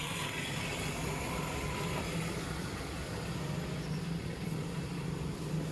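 A steady mechanical hum with a constant low tone, like an engine running at idle.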